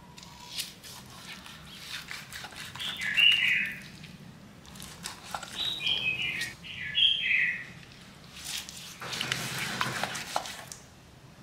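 A kitchen knife slicing through raw chicken skin and flesh on a wooden cutting board, with crisp crackling cuts and a longer slice near the end. A bird chirps three short runs of falling notes over it, louder than the cutting.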